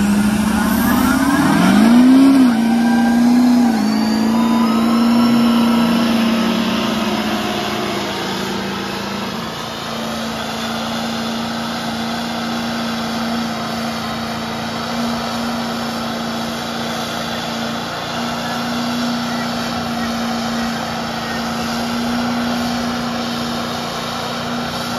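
Diesel engines of lifted mega trucks pulling hard against each other under full load. The pitch climbs over the first couple of seconds, then holds steady at high revs, loudest in the first few seconds.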